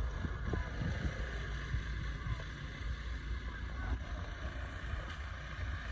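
Steady low rumbling noise with an even hiss above it.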